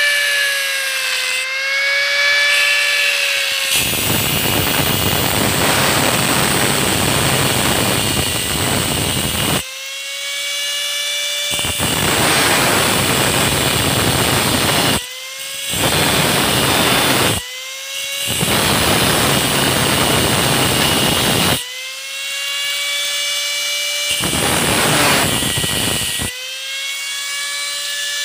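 Angle grinder cutting into a motorcycle's metal handlebar. Its motor whines steadily between cuts, and the disc grinds harshly into the tube in five spells of one to six seconds each.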